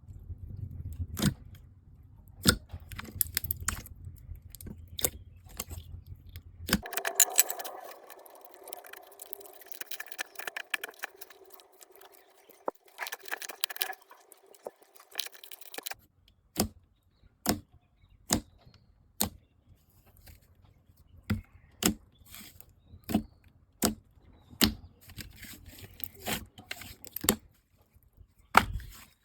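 Slime being squeezed and pressed by hand, giving a string of sharp pops and crackles. The texture changes abruptly about seven seconds in to a denser crackling, and again about sixteen seconds in to separate pops, roughly one a second.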